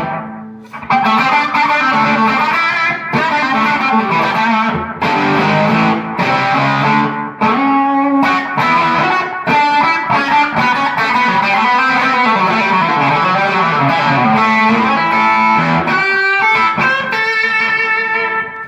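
Electric guitar, a Stratocaster on its bridge pickup with the tone rolled back, played through a Keeley D&M Drive pedal's drive channel into a Fender Twin amp for a lightly crunchy, mildly distorted tone. The notes keep changing as the passage is played, with a brief break about half a second in.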